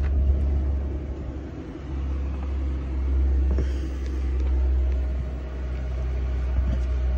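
A steady low rumble with slow swells in loudness, and scattered light knocks and rustles as the phone's microphone is jostled close against the combine while he works.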